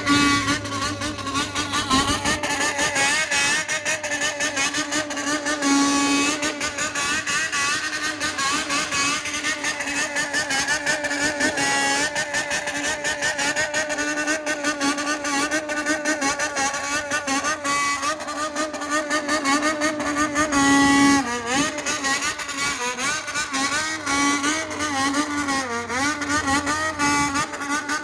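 Honda CBX400F air-cooled inline-four through a Waltz Kikai exhaust, revved at high rpm in a rhythmic call: the pitch wavers up and down continuously, with brief held revs about 6 seconds in and again about 21 seconds in.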